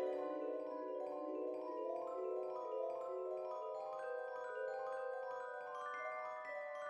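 Background music: a light melody of quick, bell-like struck notes in a steady run.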